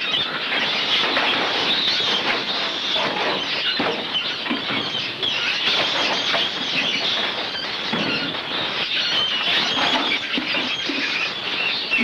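Many farmed mink in wire cages screeching and squealing at once, a dense, unbroken stream of short, high-pitched cries from disturbed animals.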